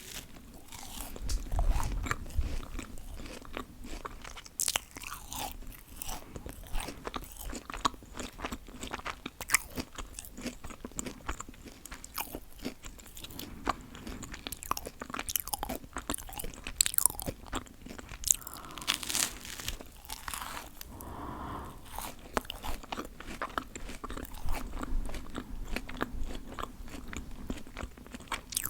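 A person biting and chewing bread spread with peanut butter close to the microphone, with many short crisp clicks of mouth and food sounds throughout.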